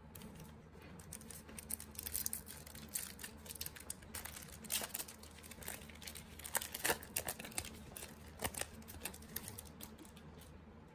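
Trading cards being handled and flipped through by hand: faint, irregular clicks and light taps of card stock, over a steady low hum.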